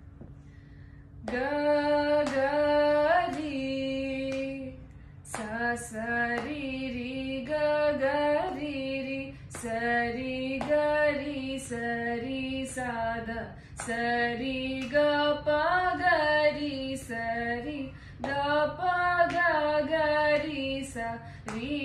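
A young woman's solo voice practising Carnatic vocal exercises, unaccompanied phrases of held and gliding notes with short breaths between them. It begins about a second in.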